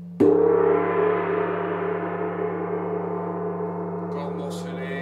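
Hand-held flat gong struck once with a mallet about a quarter second in, then ringing with many tones that fade slowly. A steady low hum runs underneath.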